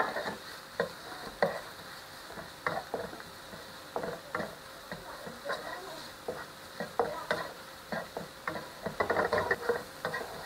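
Wooden spatula scraping and tapping around a non-stick (Teflon) frying pan as chicken fillet pieces and egg are stir-fried, over a light sizzle. The strokes come irregularly and grow quicker near the end.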